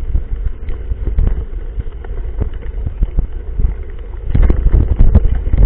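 Wind buffeting an action camera's microphone on a moving mountain bike, with a steady low rumble and frequent short knocks and rattles from riding over rough trail, getting louder near the end.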